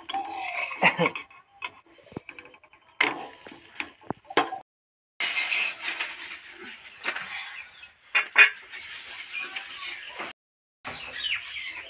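Steel kitchenware clinking and scraping: a metal spatula knocking on a griddle under a cooking rice pitha, then steel bowls knocking as rice is handled and water is poured from one steel bowl into another near the end.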